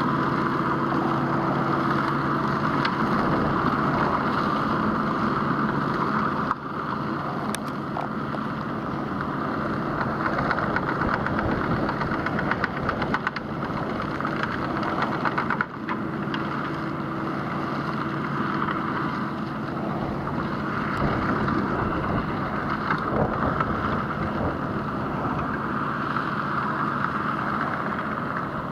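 Tractor engine running steadily under load, pulling a muck spreader with its vertical beaters turning and throwing manure. The sound drops out briefly twice.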